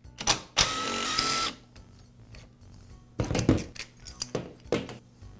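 A power screwdriver runs steadily for about a second, backing out the screw that holds the trimmer's air filter base and carburetor. Then come several short clicks and knocks of plastic and metal parts as the air filter base and carburetor are pulled off by hand.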